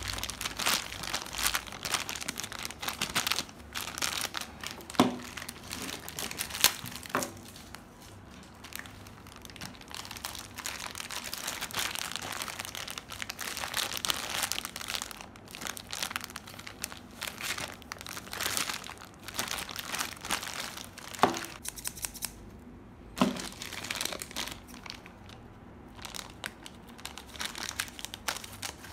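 Clear plastic bags crinkling and rustling as they are handled, with a few sharp knocks scattered through.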